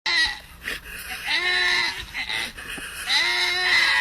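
An animal bleating: two long, quavering bleats, the second starting about three seconds in.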